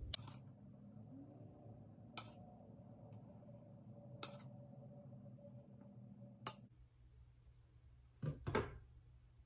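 A metal spoon clinking against a stainless steel mixing bowl about every two seconds as pancake batter is spooned into a pan, over a faint steady hum that stops shortly before the end. Near the end a glass pan lid knocks twice.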